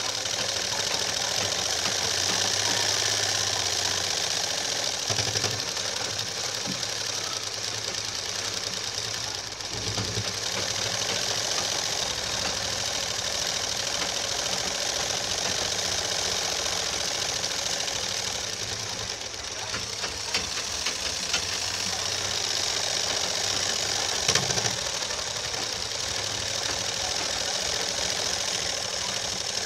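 Black domestic sewing machine running fast and steadily, the needle stitching through dark cloth in a rapid, even rhythm.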